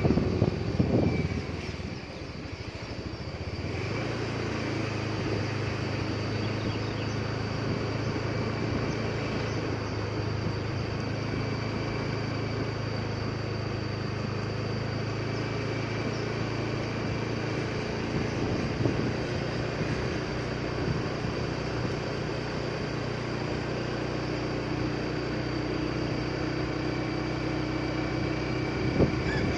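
A vehicle's engine running steadily with tyre and road noise as it drives along a smooth asphalt road. Wind buffets the microphone in the first second or two.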